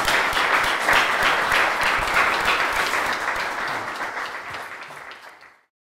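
Audience applauding with many hands clapping, loud at first, then thinning and fading away until it cuts off near the end.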